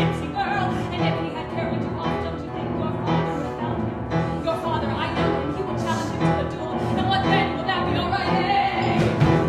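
A woman singing a musical-theatre number over piano accompaniment.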